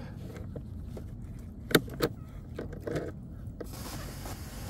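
A few sharp clicks and knocks over a steady low rumble, two of them close together about two seconds in and loudest.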